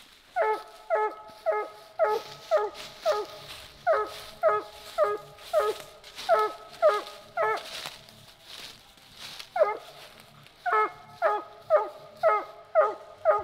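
Treeing Walker coonhound barking treed: a steady chop of short barks, about two a second, with a brief break about two-thirds of the way through, the sign of a raccoon up the tree. Footsteps rustle through dry leaves between the barks.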